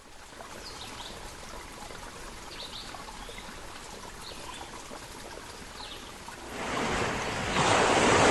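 Wetland ambience: a steady rush of running water with a handful of short bird chirps. Over the last two seconds the sound of surf swells up as a wave breaks on the beach.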